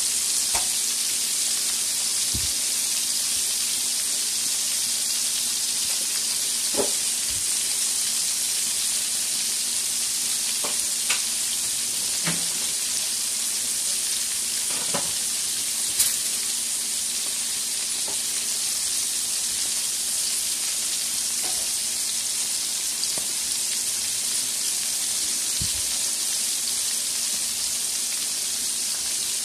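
Flour-dredged sardines deep frying in hot oil: a steady, high sizzle broken by a few sharp pops and crackles.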